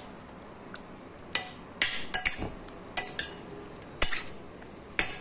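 Metal spoon clinking against a glass bowl while stirring chicken pieces in a wet marinade: about eight sharp, irregular clinks with a brief bright ring, starting about a second and a half in.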